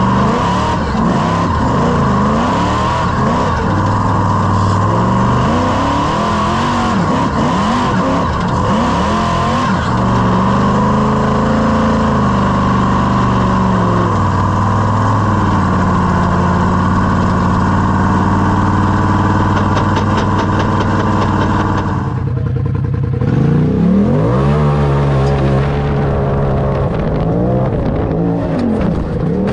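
Supercharged engine of a rock bouncer revving hard and easing off over and over as it climbs, its pitch rising and falling with the throttle. About three-quarters of the way through the sound changes abruptly to a different engine run with the same rising and falling revs.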